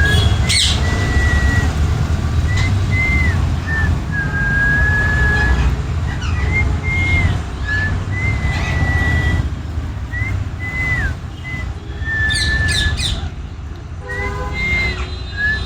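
High whistling in a string of short, bending notes and longer held ones over a steady low rumble, with a few sharp rising chirps about twelve seconds in.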